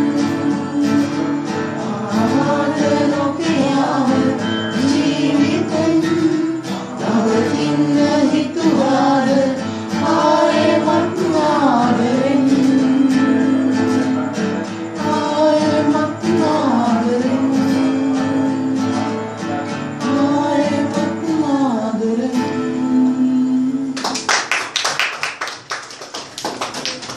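A man singing to his own strummed acoustic guitar. The song ends about 24 seconds in and the audience applauds.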